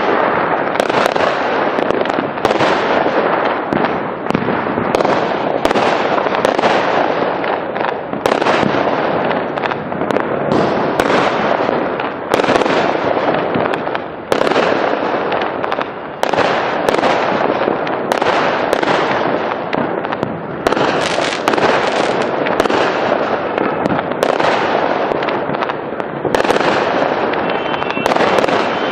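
Fireworks going off in a continuous barrage: a steady crackle with sharp bangs every second or so.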